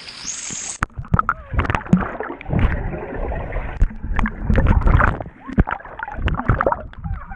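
Pool water splashing and sloshing against a camera that dips in and out of the surface, with muffled underwater gurgling and sharp irregular splashes from a swimmer close by.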